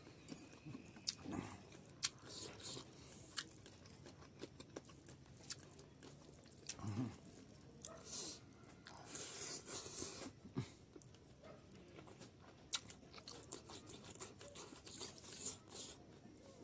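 Faint close-up chewing and mouth smacking of a person eating rice and boiled pork fat by hand, with scattered small clicks and a few short hissy bursts.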